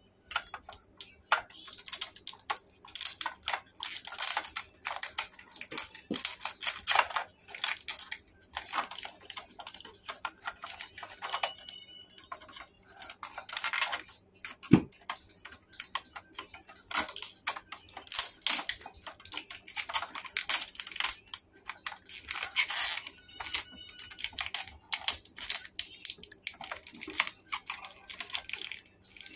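Irregular crinkling and rustling of thin plastic wrap and tape, with small clicks of hard plastic, as a plastic biting-dog toy is handled; one knock about halfway through.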